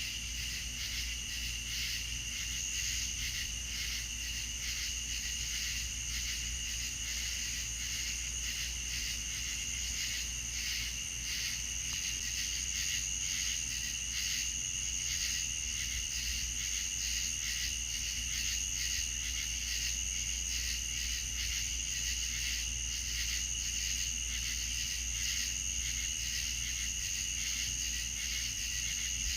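Night insect chorus of crickets chirping steadily, a continuous high pulsing trill on two pitches, over a low steady hum.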